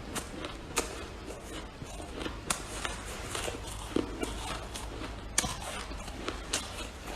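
Freezer frost crunching up close: a steady fine crackle broken by a few sharp, loud crunches a second or two apart.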